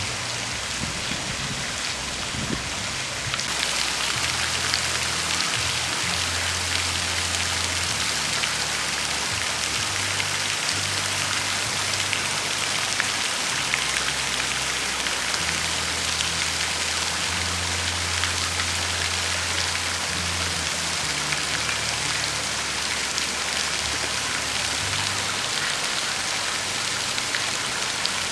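Steady hiss of falling water like rain, growing brighter and louder a few seconds in, with low notes stepping in pitch every second or two underneath, like a bass line.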